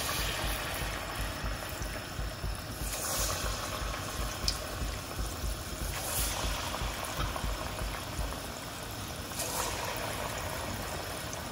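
Balls of carrot batter deep-frying in hot oil in a wok: a steady sizzling and bubbling, with a fresh surge of sizzle each time another ball is dropped in, three times about three seconds apart.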